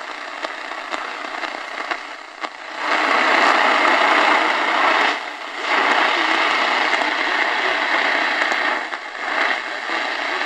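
Crackling AM static and hiss from the speaker of a Realistic DX-350 portable radio tuned on the medium-wave band, where a weak, distant station is buried in the noise. The hiss swells much louder about three seconds in, dips briefly near the middle, and settles back down near the end; bringing the passive loop antenna in gives not much improvement.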